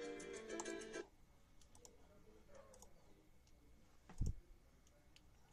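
Llanero harp music played back through small computer speakers, cutting off abruptly about a second in. Faint clicks follow, and a single dull thump a little after four seconds.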